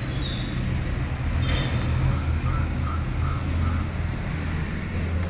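Steady low rumble of a motor vehicle engine running, with a row of four faint short beeps about halfway through.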